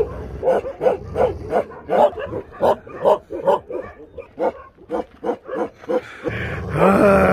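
Dogs barking over and over, about two barks a second. Near the end comes one longer whine that rises sharply and then slides down in pitch.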